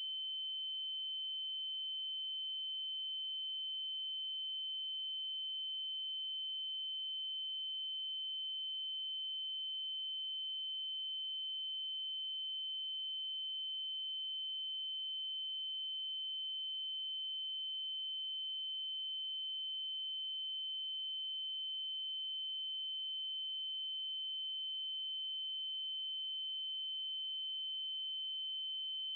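Steady synthetic 3072 Hz triangle-wave tone, a single high pitch held without change, with faint upper overtones.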